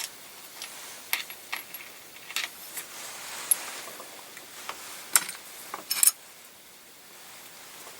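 Brass 9mm Luger cases and reloading-press parts being handled: scattered light metallic clicks and clinks, the last and sharpest ones about six seconds in.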